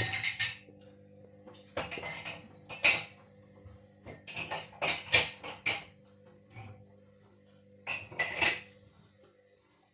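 Candy washing machine drum turning with a steady motor hum while the load clatters and clinks against the drum in bursts, about five times. The machine is trying to redistribute an unbalanced load, a heavy jumper, and cannot get up to spin.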